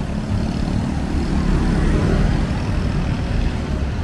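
Road traffic: a vehicle engine running nearby over a steady low rumble, a little louder about halfway through.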